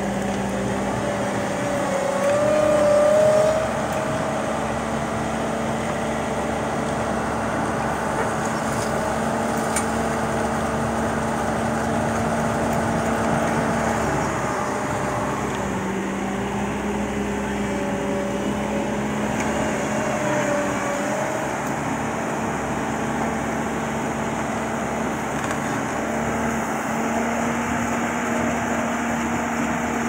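Self-loading concrete mixer's engine and hydraulics running under load as its bucket scoops and lifts aggregate. The steady engine note shifts in pitch now and then, with a brief louder swell a couple of seconds in.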